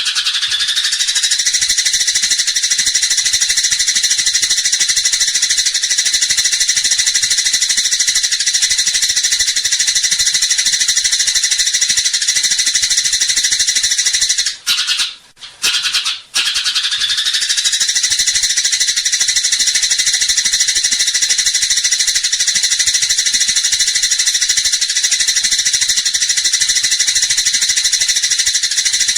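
Eurasian tree sparrow in fighting mode giving a dense, rapid, high-pitched chatter without pause, cutting out briefly twice about halfway through before starting again.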